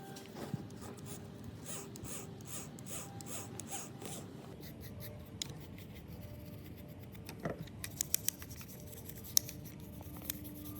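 Hand-tool work on small parts of a robot vacuum: rhythmic scraping strokes, about two a second, for the first few seconds, then a cluster of sharp clicks a few seconds later.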